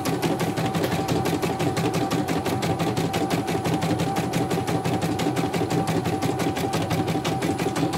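CNY portable embroidery machine stitching out a design: a fast, even clatter of needle strokes over a steady motor tone. It is a test stitch-out of the machine after repair.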